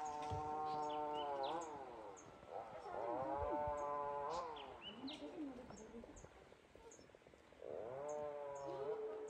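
An animal calling: three long, drawn-out calls, each holding a steady pitch before falling away at the end, with small birds chirping faintly in between.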